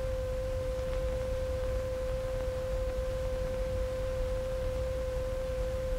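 A loudspeaker under test playing a single steady, mid-pitched test tone with faint overtones, unchanging in pitch and level, over a low rumble.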